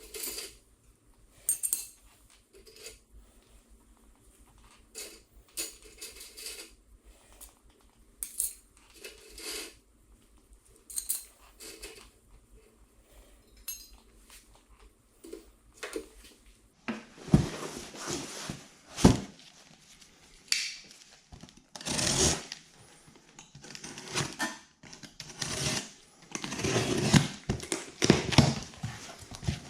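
Small metal parts being handled, with scattered clinks and light clatters; from about 17 seconds in the handling gets busier and louder, with rustling, scraping and knocks.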